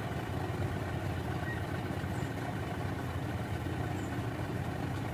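Truck diesel engine running steadily at low revs as a Mitsubishi Fuso Canter creeps through slick mud.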